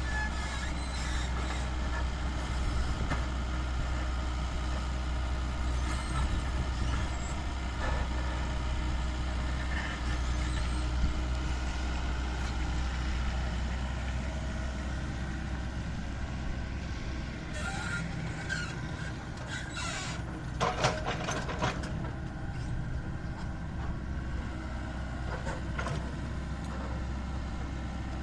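Heavy diesel road-construction machinery running steadily with a deep, continuous engine rumble, broken by a few sharp metallic clanks about two-thirds of the way through.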